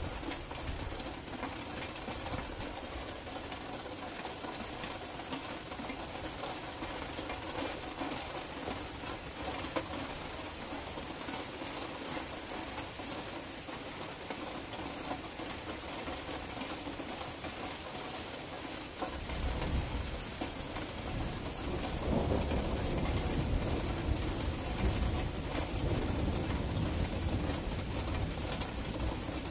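Steady hiss of rain in a night thunderstorm. About two-thirds of the way in, a low rumble of thunder comes in and grows louder toward the end.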